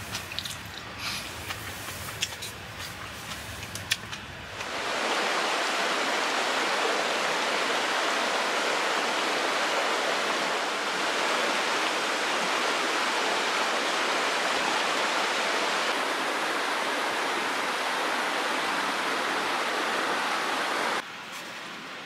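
A few light clicks of chopsticks on metal dishes, then, about five seconds in, the steady rushing of a mountain stream running over rocks, which continues until shortly before the end.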